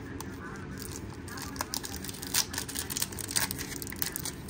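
Foil wrapper of a Bowman baseball card pack being torn open by hand: irregular crinkles and crackles, coming thicker from about a second and a half in.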